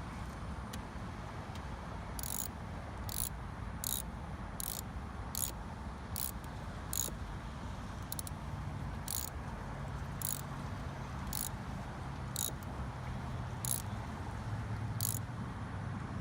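Short high scraping strokes, roughly one a second, from corrosion being scraped off the car battery's terminals. A low hum of traffic runs underneath.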